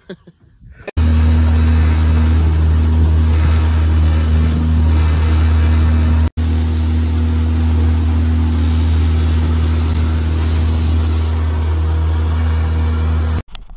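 Small boat's outboard motor running steadily at cruising speed, with rushing wind and water. It starts abruptly about a second in, cuts out for an instant about halfway, and stops abruptly near the end.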